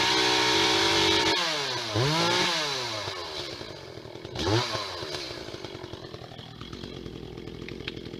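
Two-stroke chainsaw running at full throttle, then let off. It is blipped up twice, once about two seconds in and again briefly past the middle, and each time it falls back, settling into a steady idle.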